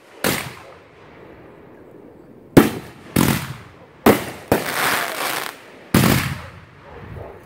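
Consumer aerial fireworks going off overhead: about six sharp bangs over six seconds, the shots bunched together in the middle, each followed by a fading tail.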